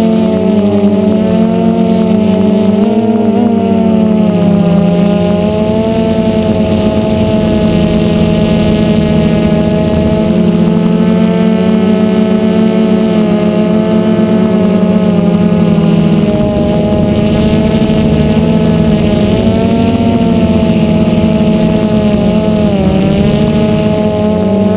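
DJI F450 quadcopter's four electric motors and propellers, heard close up from the camera on the frame: a loud, steady buzzing whine of several slightly different pitches that waver together as the motors speed up and slow down, with brief dips about three seconds in and near the end.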